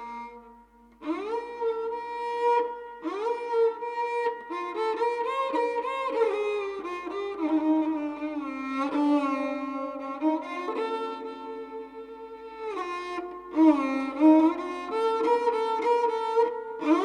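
Kamaicha, the bowed Rajasthani folk lute, playing a melody of held notes and pitch glides over a steady drone note.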